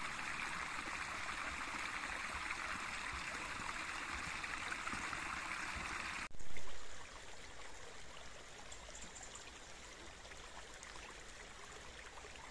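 Gorge stream rushing over rocks, a steady splashing. About six seconds in it changes abruptly to a quieter, thinner stretch of water, with a brief louder surge just after the change.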